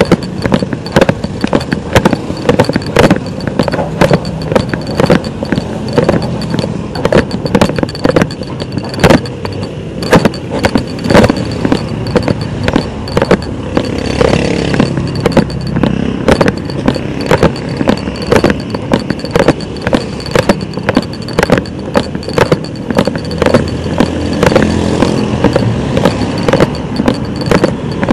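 Rattling and clattering from a camera shaking in its mount as it rides along a rough road, many small knocks a second over a steady rumble of road noise and passing traffic.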